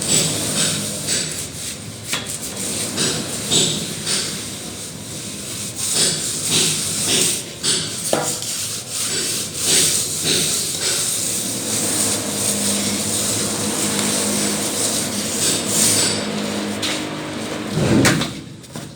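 Plastering work: irregular scraping strokes of a trowel working mortar on a wall, with occasional knocks, and a louder bump near the end.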